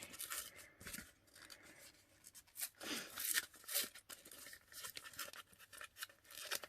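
A small packet being handled and opened by hand, with faint irregular rustling, crinkling and scratching.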